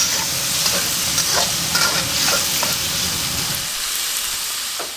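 Steady sizzle of food frying in hot oil, with scattered crackles and pops; it cuts off abruptly near the end.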